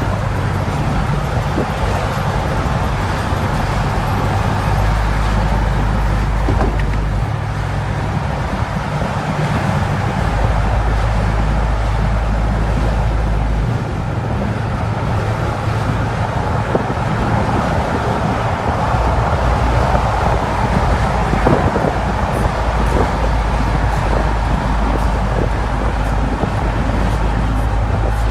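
A car driving on the road: steady engine and road noise with a deep rumble that rises and falls every few seconds.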